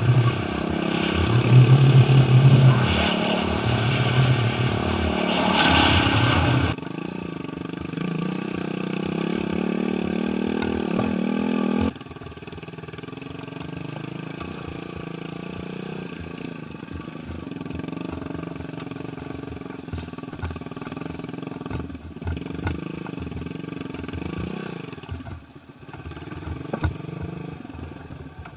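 Small motorcycle engine running and revving as it is ridden, its pitch rising and falling with the throttle. It is loudest for the first several seconds, then drops off abruptly twice to a quieter running note.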